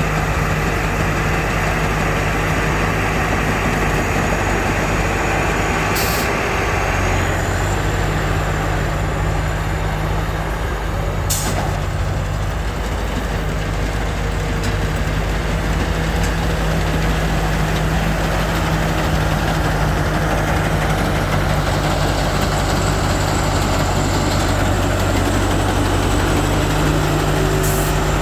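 Combine harvester running steadily at work: a continuous engine drone mixed with the noise of the cutting and threshing machinery. Three brief sharp clicks are heard, about six and eleven seconds in and again near the end.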